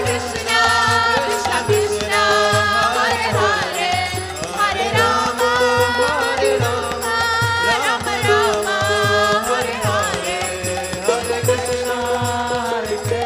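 Devotional kirtan music: a woman's lead singing with harmonium accompaniment over a steady drum beat.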